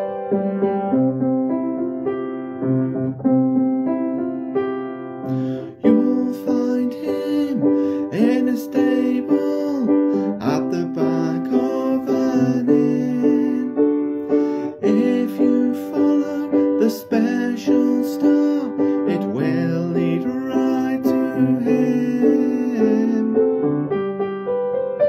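Instrumental music led by a piano-like keyboard. About six seconds in the arrangement fills out, with brighter sounds and crisp percussive strikes joining the sustained chords.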